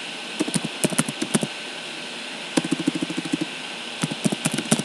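Computer keyboard keys clicking as a file name is typed, in three quick runs of keystrokes over a steady hiss.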